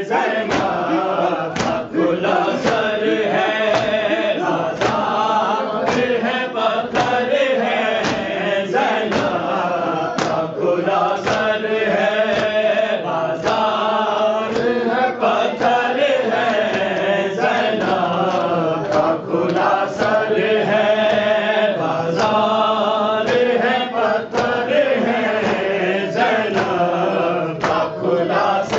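Noha, a Shia lament, chanted by voices in a slow, melismatic line. Sharp strikes keep a steady beat beneath it, about one every two-thirds of a second.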